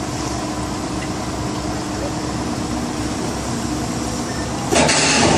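Mobile crane's engine running steadily with an even hum during the lift. Near the end a sudden, louder, harsher noise breaks in.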